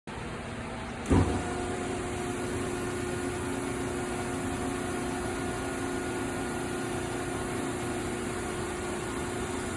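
Max-Pak MP60HD vertical baler's 15 hp three-phase electric motor and hydraulic pump starting with a loud clunk about a second in, then running with a steady hum and a few held tones.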